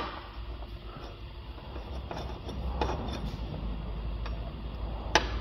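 Hands and tools working metal parts under a car: a few sharp clicks and knocks, one about three seconds in and another near the end, over a steady low hum.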